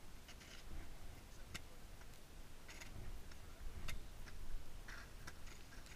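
Sharp, irregular clicks and short scrapes of ice tools and crampons striking the glacier ice wall, over a low rumble of wind on the microphone.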